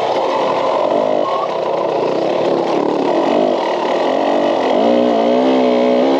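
Dirt bike engine being ridden hard, its revs rising and falling with the throttle and climbing sharply about three-quarters of the way through.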